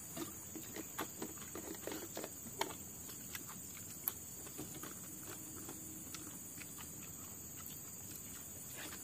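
Soft clicks and smacks of people eating rice with their hands from banana-leaf plates, chewing and handling food, scattered through the first three seconds with one sharper click about four seconds in. Behind it runs a steady high chirring of insects.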